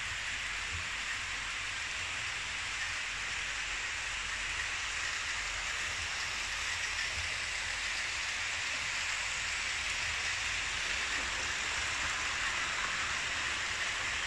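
Steady rolling hiss and whir of Märklin H0 model trains running on metal track, growing slightly louder near the end as a passenger train rolls past close by.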